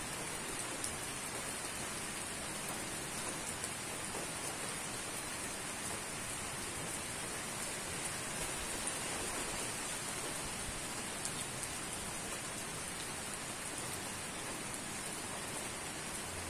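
Steady rain falling during a storm: an even hiss with many faint drop ticks.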